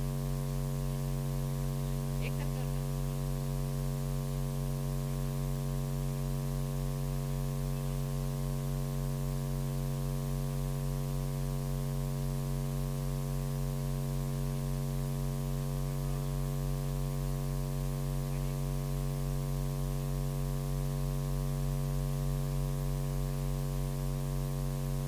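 Steady electrical mains hum in the audio feed: a constant low buzz with evenly spaced overtones that does not change.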